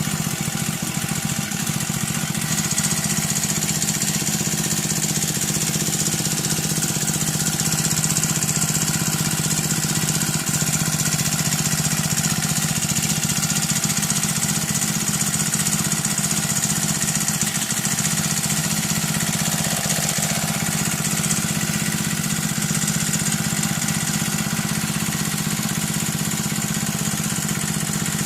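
Freshly serviced four-stroke brush cutter engine running steadily just after being pull-started. The owner judges it to be running properly.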